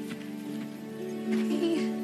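Soft orchestral film score holding sustained low notes, with a brief breathy sound about one and a half seconds in.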